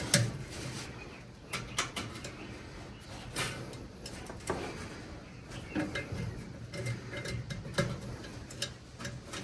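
Scattered light clicks and taps of hand tools and brake line parts being handled as a line fitting is lined up and threaded.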